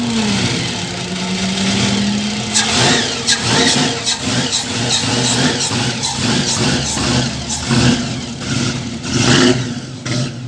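Vehicle engine being revved hard: a held rev for the first couple of seconds, then a rapid, irregular series of sharp throttle blips and pops, several a second, for the rest of the time.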